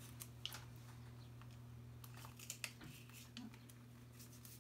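Faint, scattered clicks and plastic rustling as secondary IV tubing and its spike are handled, over a steady low hum.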